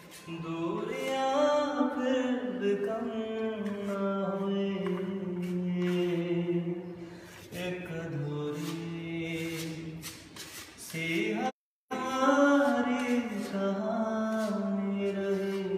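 A man singing unaccompanied: a slow, chant-like melody of long held notes that glide between pitches, with a brief break about eleven and a half seconds in.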